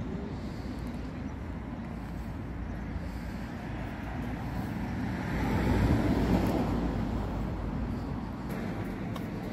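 Low outdoor rumble with a motor vehicle passing close by, loudest about six seconds in.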